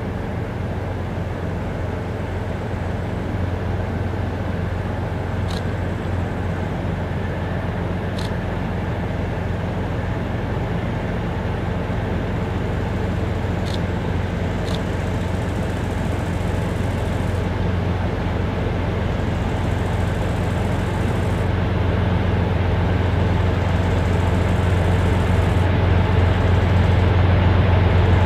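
Two ST40s diesel locomotives working in tandem, approaching with a mixed train: a steady low engine drone that grows slowly louder as they draw nearer.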